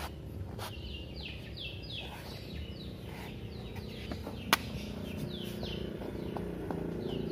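Birds chirping: a steady run of short, falling high notes, two or three a second. A single sharp click about four and a half seconds in, over a low steady background noise.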